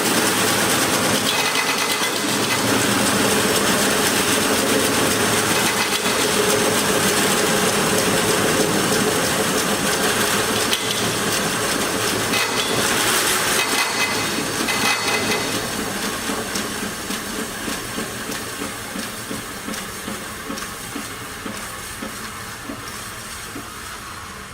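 Yates American Y-36 direct-drive 36-inch vertical band saw running, a steady hissing whir of the blade and wheels with faint clicking. About fifteen seconds in, the sound begins to die away slowly and keeps falling to the end, as a large saw does when it winds down.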